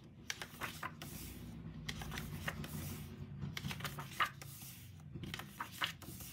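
Pages of a thick glossy photo book being turned by hand: a series of short paper rustles and flaps, the loudest a little past the middle.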